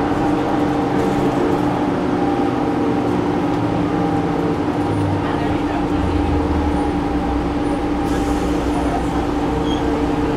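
Cabin of a Gillig Advantage transit bus with a Cummins ISM diesel engine: steady engine and drivetrain hum with a constant whine, the engine note dropping to a deeper rumble about six seconds in.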